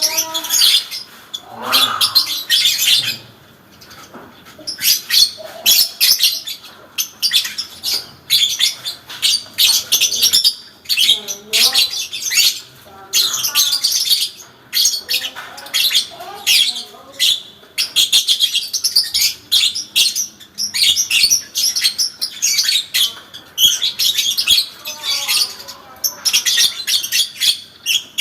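Parblue lovebird giving its long 'ngekek' chatter: rapid, shrill, high-pitched chattering in runs of about half a second to a second with brief breaks, kept up without pause, the sustained song prized in fighter lovebirds.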